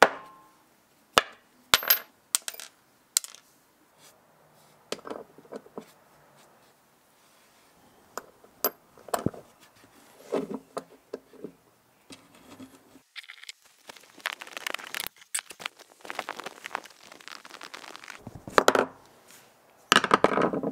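Sharp metallic clinks and knocks of a small chrome 1/4-inch ratchet being set down and handled on a workbench top. There are several crisp clicks in the first few seconds, then softer rubbing and handling noises, with a louder cluster of knocks near the end.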